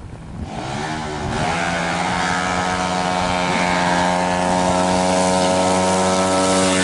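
Tuned 200cc automatic scooter drag bike engine at full throttle on a drag run, climbing in revs over about the first second and a half, then holding one steady high-revving note.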